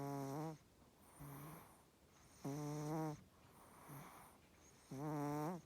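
Chihuahua snoring in its sleep: three loud, pitched, buzzing snores about two and a half seconds apart, each under a second long, with softer breaths between them.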